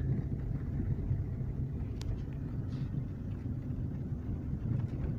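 Steady low engine and road rumble heard inside the cabin of a moving VAZ-2112, with a faint click about two seconds in. No squeak comes from the rear seats: the creak has been cured by tightening the seat bolts and replacing the lock rings.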